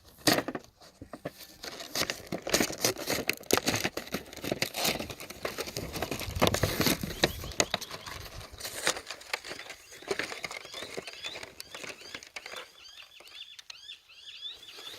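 Plastic blister and cardboard packaging of a Hot Wheels 5-pack being torn and crinkled open by hand: an irregular run of crackles, rips and clicks that thins out near the end.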